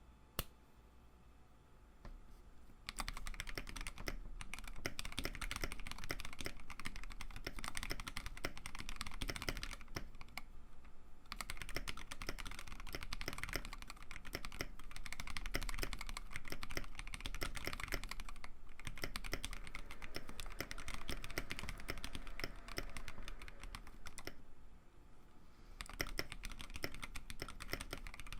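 Typing on a 3D-printed mechanical keyboard fitted with Akko Neon double-shot PBT keycaps in ASA profile. Fast, dense keystrokes begin about three seconds in and run on with a few short pauses.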